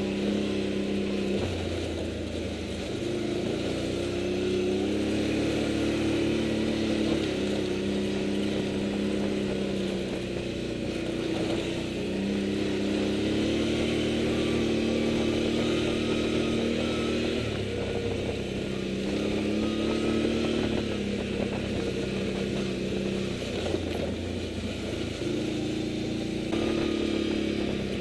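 A touring motorcycle's engine running while riding an unpaved track, its note rising and falling several times.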